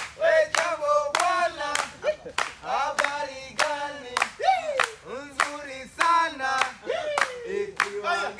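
A man singing a Swahili chant with steady hand claps, about two to three claps a second.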